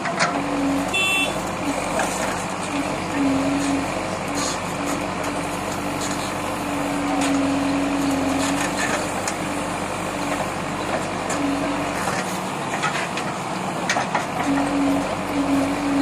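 Backhoe loader's diesel engine running under load as the backhoe arm digs and dumps soil. A droning note comes and goes, with scattered knocks.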